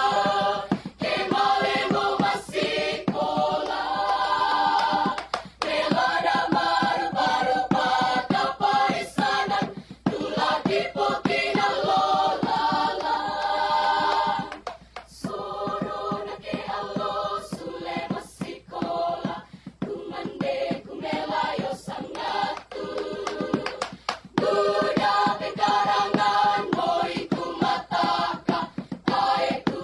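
High-school choir singing in several voice parts, with a softer passage in the middle before it swells back to full volume.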